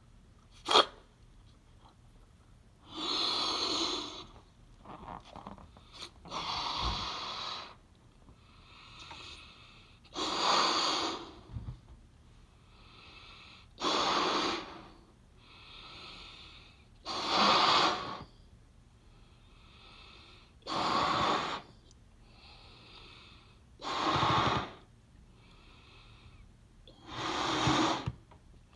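A person blowing up a rubber balloon by mouth: eight long, forceful breaths pushed into the balloon about every three and a half seconds, with quieter in-breaths between them. There is a sharp click about a second in.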